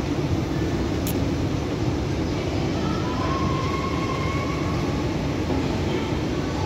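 Inclined moving walkway running, giving a steady mechanical rumble as its pallets travel.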